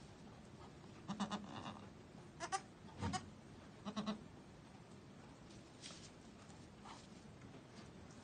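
Goats bleating softly: about four short, quiet calls in the first half, from a doe with her newborn kid.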